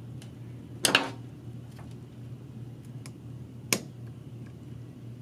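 Handling sounds of thin wires and a plastic electrical connector: a few sharp clicks, the loudest about a second in and another just under four seconds in, over a steady low hum.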